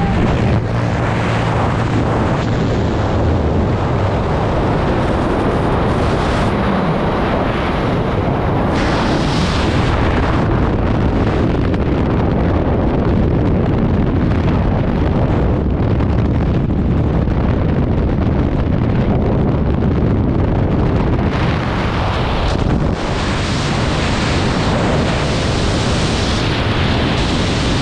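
Loud, steady rush of freefall wind buffeting a helmet-mounted action camera's microphone during a skydive.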